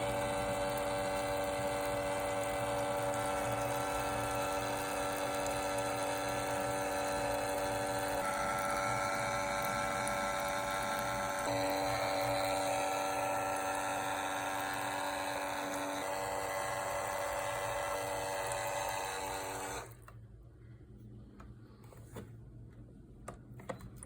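A small electric motor running with a steady whine, its pitch shifting slightly a few times, then switching off suddenly near the end. A few light clicks follow.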